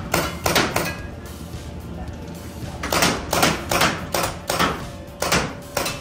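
Mounted paintball gun firing a string of sharp pops with a short echo: about four quick shots in the first second, then about eight more from about three seconds in.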